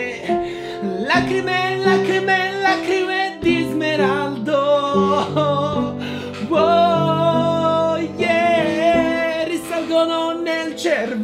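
A song: a singing voice with long, wavering held notes over guitar accompaniment.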